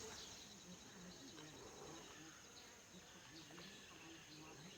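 Near silence outdoors, with a faint, steady, high-pitched insect drone, as of crickets, in the background.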